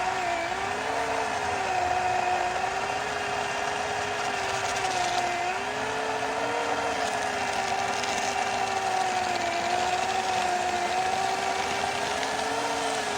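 Wen 12-amp corded electric chainsaw, fitted with an 18-inch Oregon bar and chain, running steadily while cutting through a hardwood pecan stump. Its motor's whine wavers slightly in pitch as the chain takes the load.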